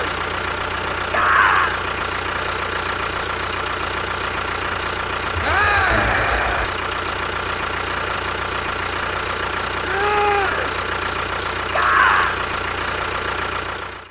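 An engine running steadily at idle, with short rising-and-falling voice-like calls over it about five times.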